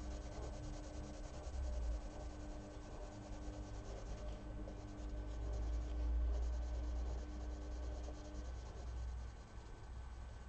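Prismacolor coloured pencil in Lavender rubbing back and forth on colouring-book paper, a steady run of quick shading strokes laying down a first layer of colour.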